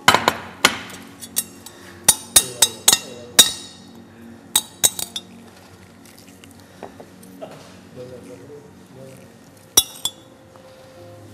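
A metal spoon clinking against a white ceramic bowl while scooping out stuffing. There is a quick run of sharp clinks in the first few seconds, then only a few scattered taps, with a last pair near the end.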